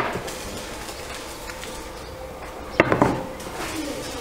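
A few light knocks on a kitchen work table as thin pastry dough is worked by hand: one sharp tap at the start and a quick double knock about three seconds in, over a faint steady hum.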